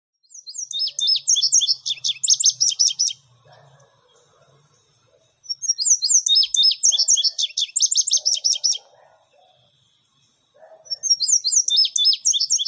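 Songbird singing: three fast, high twittering phrases of rapidly repeated slurred notes, each about three seconds long, with short pauses between them.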